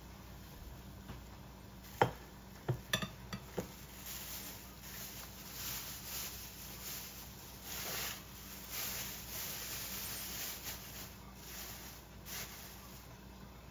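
Stir-fry sizzling in a frying pan as it is stirred, the hiss swelling and easing with each stir. A few sharp knocks of a utensil on the pan come about two to three and a half seconds in.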